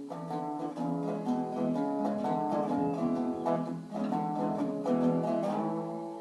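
Tricone resonator guitar playing a plucked melody, with notes ringing on and one sliding up into the next near the end.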